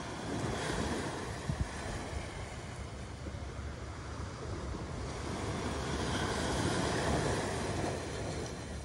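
Small sea waves breaking and washing up a sandy beach, the surf swelling twice and easing off near the end, with wind rumbling on the microphone.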